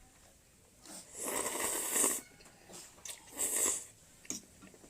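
A person slurping while eating: one long slurp about a second in, then a shorter one a little past three seconds.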